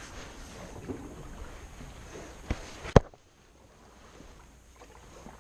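Canoe paddling: the paddle working through the water beside a metal canoe hull, with two sharp knocks about half a second apart a little past the middle, the second the loudest. After the knocks the sound drops away to a much quieter hush.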